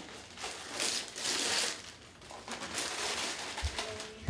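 Gift wrapping paper rustling and crinkling in uneven bursts as presents are unwrapped and handled, loudest about a second in, with a soft thump near the end.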